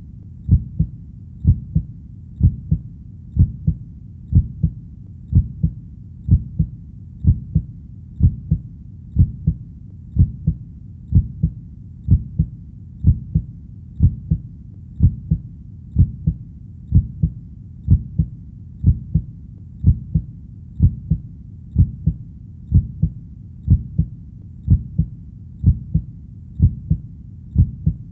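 Human heartbeat beating steadily, each beat a low double 'lub-dub', at about one a second over a faint steady low rumble.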